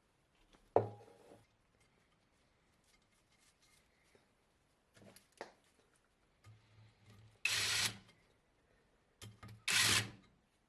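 Workshop tool sounds while a cylinder head is stripped down: a sharp metal clank with a brief ring about a second in, a few light clicks, then two short half-second bursts of a power tool near the end.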